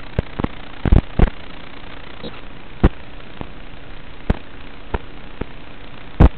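Steady hiss of static on an analog FPV video link's audio, broken by sharp pops and crackles at irregular intervals, about a dozen in all, the loudest a pair about a second in and another near the end.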